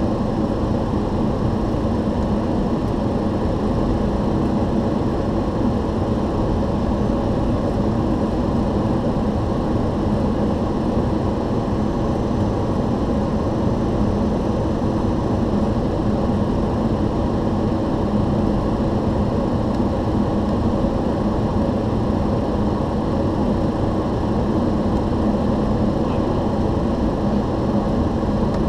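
Steady flight-deck noise of a Boeing 737 on approach: airflow and engine noise with a low steady hum, unchanging throughout.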